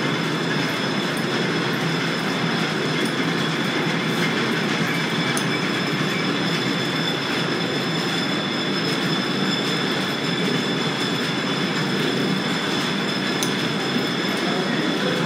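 Belt-driven overhead line-shaft transmission running: flat drive belts on spoked pulleys turning, giving a steady mechanical rumble and clatter with a thin, steady high whine above it and a few faint clicks.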